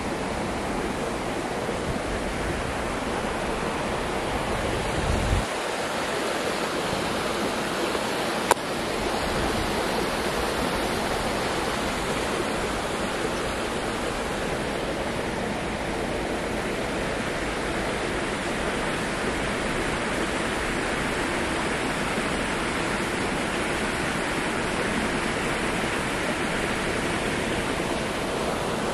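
Steady rushing noise with no rhythm or pitch, even across the range, with a brief low thump about five seconds in and a single sharp click about eight and a half seconds in.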